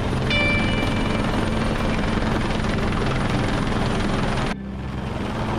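Rescue helicopter's rotor and engine running as it flies low over the boat, a steady low beat under a broad hiss. About four and a half seconds in, the hiss cuts out abruptly and the sound drops, leaving the low rotor tone.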